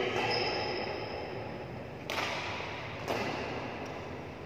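Two sharp cracks of badminton rackets hitting a shuttlecock, about a second apart, each followed by a short echo of a large hall, over steady hall noise.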